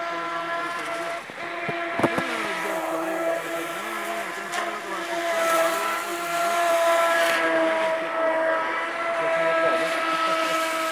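Electric radio-controlled speedboat on a 6S battery running fast across the water: a steady motor whine in several pitches that drift slightly as the throttle changes, getting louder in the middle as the boat passes. A sharp knock about two seconds in.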